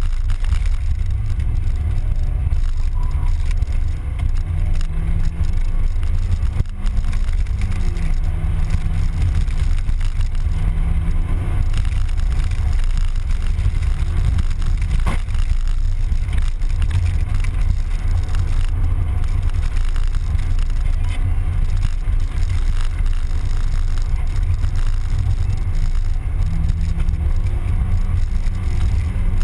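Mazda Miata driving at speed: a heavy, steady low rumble of road and wind noise, with an engine note that rises and falls a few times.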